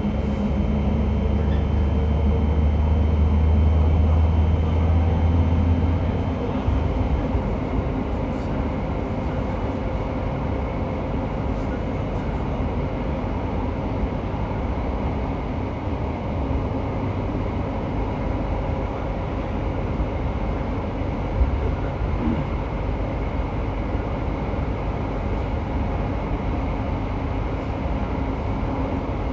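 Running noise inside a JR Hokkaido 731 series electric train car, MoHa 731-109, whose traction motor on the Otaru-end bogie gives an abnormal roar like an old nose-suspended motor. A loud low drone for about the first six seconds stops, leaving steady wheel-on-rail rolling noise.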